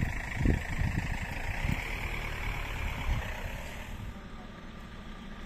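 Wind buffeting the microphone in irregular low gusts over the steady low hum of an idling fire engine; the gusts ease after the first couple of seconds.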